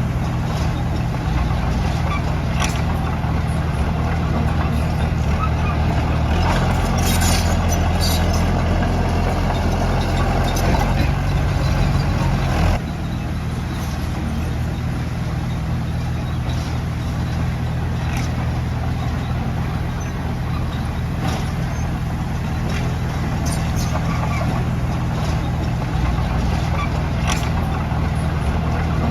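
Heavy diesel engine running steadily. It labours harder from about six seconds in and eases off suddenly near the middle, with scattered metallic clicks and squeaks over the drone.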